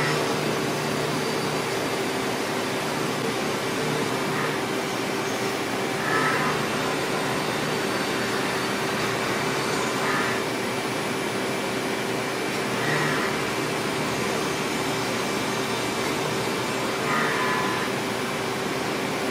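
Roughing ball end mill in a 5-axis CNC mill-turn machine cutting Ti-6Al-4V titanium between blisk blades: a steady machine hum with a constant mid-pitched tone, and short higher-pitched squeals from the cut every few seconds.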